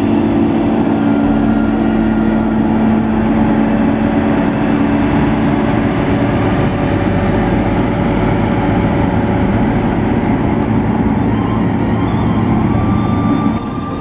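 SANY SAG200-5 motor grader's diesel engine running steadily under load as its blade spreads soil.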